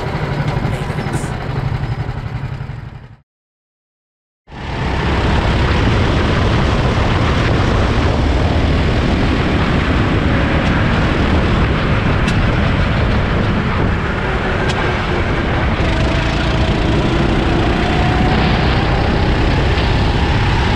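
Go-kart engine running at speed, heard onboard with wind rushing over the microphone, its pitch rising a little near the end. It follows a few seconds of music fading out and a brief silence.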